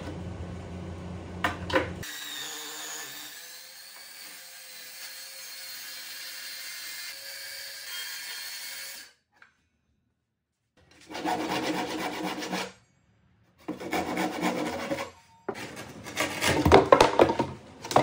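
Plywood being worked with a hand tool: rough rubbing, sawing strokes in three bouts over the last seven seconds, the last the loudest, after a stretch of steady shop hum.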